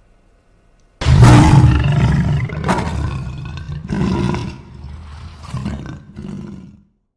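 A lion roaring: one loud roar about a second in, followed by a run of shorter, weaker roars that fade out.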